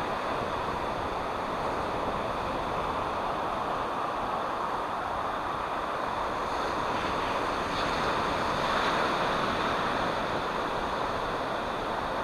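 Steady rush of ocean surf mixed with wind, swelling slightly about eight seconds in.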